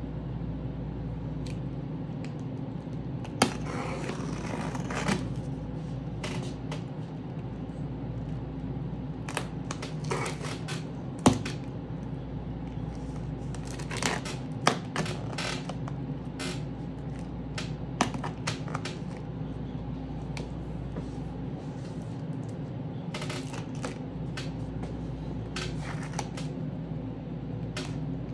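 Cardboard and plastic speaker packaging being handled and opened: scattered clicks, taps and short rustles, with a louder rustle about three and a half seconds in, over a steady low hum.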